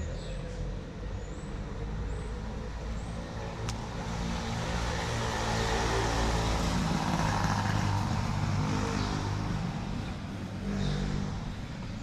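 A motor vehicle passing on the street: engine and tyre noise swell to a peak about seven seconds in, then fade. Small birds chirp faintly near the start.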